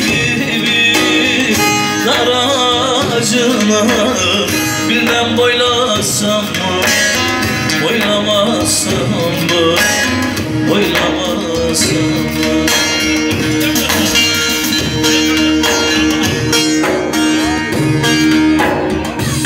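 Instrumental break of Turkish folk music: an electric bağlama (long-necked saz) plucking the melody over a keyboard's held accompaniment and a steady beat.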